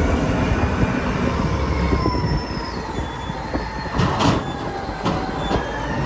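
A Caterpillar 992C wheel loader's V12 diesel engine runs under load with a steady low rumble and a thin, slowly wavering high whine while the raised bucket dumps dirt into a truck. A loud knock comes about four seconds in.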